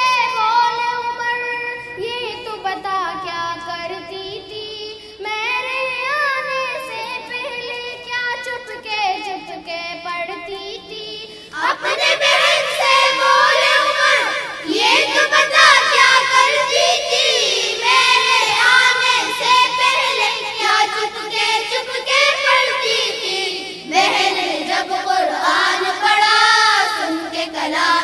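Schoolchildren singing a Hamd, a devotional song praising God, into stage microphones. The singing gets louder and fuller about twelve seconds in.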